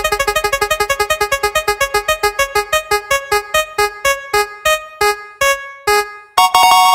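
Prize-wheel spin sound effect: a run of short electronic keyboard-like ticking notes, fast at first and slowing steadily as the wheel winds down. A bright sustained chime chord starts near the end as the wheel comes to rest.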